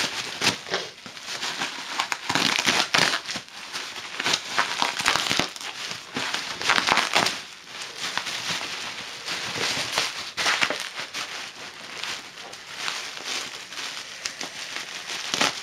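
Bubble wrap and plastic packaging crinkling and rustling as a taped parcel is pulled open by hand. It comes in irregular bursts with sharp crackles.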